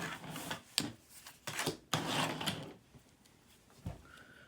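Small hard clicks and knocks with a scraping rub as the laptop's hard drive and its mounting rail are handled inside the opened case, then a soft thump near the end.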